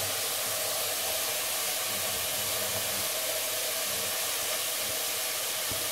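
Steady sizzling of chopped onion, leek and other vegetables sautéing in oil in a pot.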